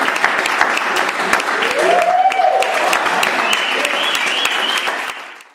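Audience applauding, with a single rising-and-falling cheer from someone about two seconds in; the applause fades out at the end.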